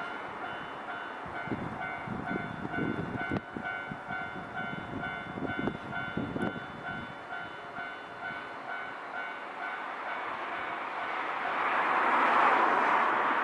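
Japanese level-crossing alarm ringing its steady repeating two-tone clang while a Nankai electric train passes, its wheels thumping in groups over the rail joints a few seconds in. A louder rush of noise swells near the end.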